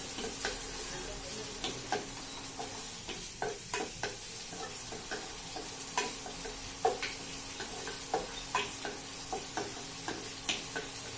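Chopped ginger, garlic and cumin sautéing in a little hot oil in a metal kadai, sizzling steadily, while a wooden spatula stirs and scrapes against the pan in short, irregular knocks. A faint steady low hum lies under it.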